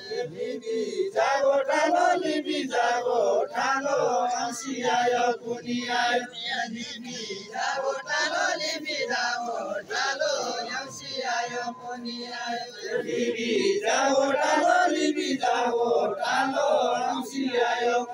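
A group of voices, mostly men's, singing a Deuda folk song together in a chant-like chorus, in short phrases with brief breaks between them.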